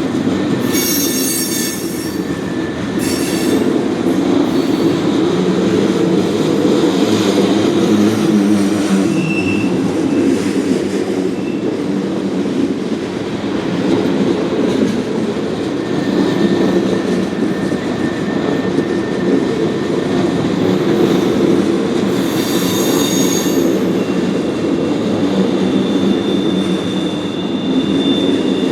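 Ethanol tank cars of a freight train rolling past with a steady heavy rumble. Wheel flanges squeal in thin high tones that come and go, with harsher screeching spells near the start and again about three-quarters of the way through.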